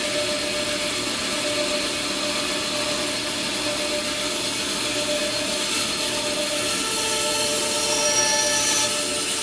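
A woodworking power tool running steadily as it cuts redwood, a constant hiss with a few held tones that shift and grow slightly louder in the last couple of seconds.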